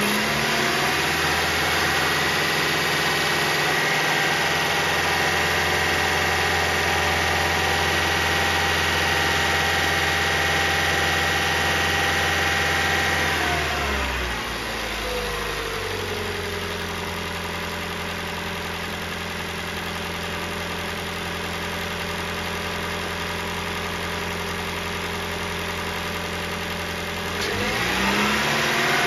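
2024 Toyota Prius's 2.0-litre four-cylinder engine held at raised revs for about thirteen seconds, then dropping back to a steady idle, and revving up again near the end. The rev-and-idle cycling pushes trapped air out of the cooling system while fresh coolant is bled through a filler funnel.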